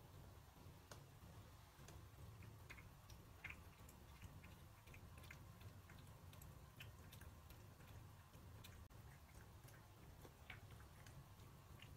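Faint, irregular clicking and crunching of a cat chewing food from a bowl, over a low steady hum.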